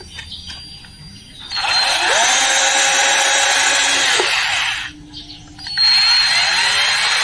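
Small handheld rotary tool drilling a hole through a woofer's speaker cone, run in two bursts of about three seconds each. The first starts about a second and a half in and the second near six seconds, each rising in pitch as the motor spins up.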